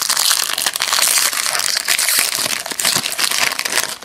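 Foil wrapper of a 2002 Fleer Tradition baseball card pack crinkling and crackling as it is torn open and crumpled in the hands, stopping abruptly just before the end.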